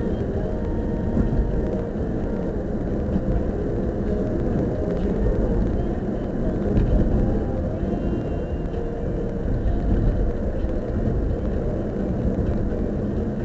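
Steady low rumble of engine and tyre noise inside the cabin of a car driving at speed.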